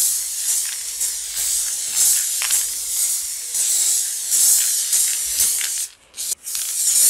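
Aerosol can of pink chalk-effect spray paint spraying: a steady high hiss for about six seconds, then two short bursts near the end.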